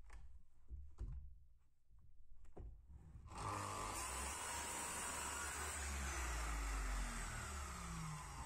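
A few knocks as a wooden board is set against the saw fence. About three seconds in, an electric compound miter saw starts suddenly and cuts across the board. Its motor then winds down with a falling tone near the end.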